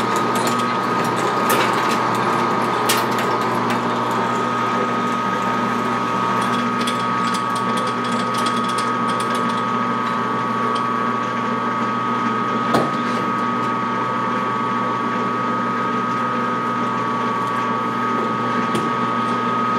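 Machine-tool spindle running steadily with a constant whine while a 1-inch twist drill is fed into a tractor axle housing. A few light clicks and one knock about 13 seconds in.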